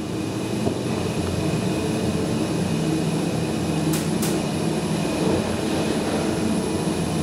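IGV hydraulic elevator's pump motor running with a steady hum as the car travels up. Two light clicks about four seconds in.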